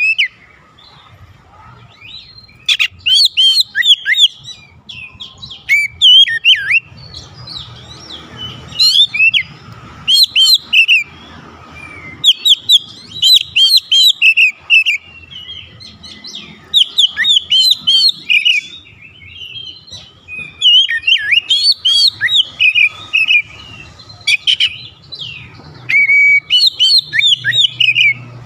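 Oriental magpie-robin (kacer) singing loud, varied whistled phrases: quick sweeping notes in bursts of a second or two, one after another with short pauses. It is a bird worked up to full song, typical of one reacting to a rival.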